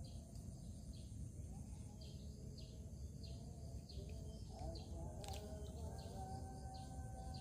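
Quiet pondside ambience: a low steady rumble with short high chirps repeating about twice a second, and a single sharp click about five seconds in.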